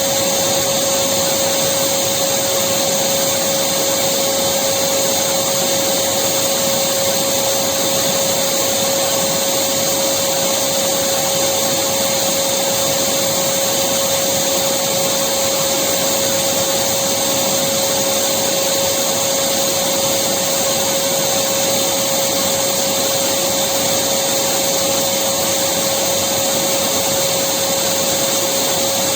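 Electric vacuum cleaner running steadily: an even motor whine with a high airflow hiss and one steady pitched hum.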